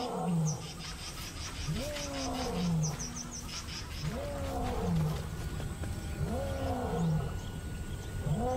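Male African lion roaring: a sequence of about five deep grunting calls, each rising then falling in pitch, roughly one every one and a half to two seconds. It is a pride male's territorial roar, a message of ownership.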